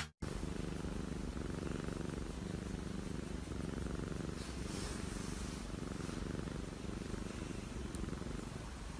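Domestic cat purring steadily while its cheek is scratched, a sign it is content.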